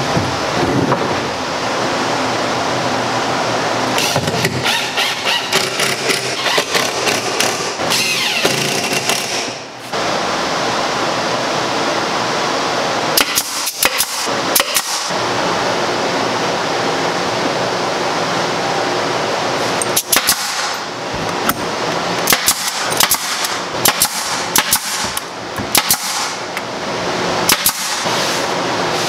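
Pneumatic brad nailer firing brads into birch plywood box panels: quick runs of sharp shots with pauses between, a long run near the start, a short one in the middle and another long run near the end, over a steady noisy background.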